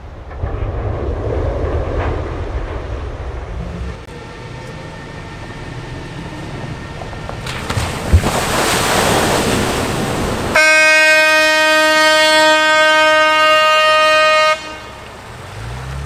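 A low rumble, then a loud rushing splash as an amphibious bus drives into a river. A steady horn blast of about four seconds follows and cuts off abruptly.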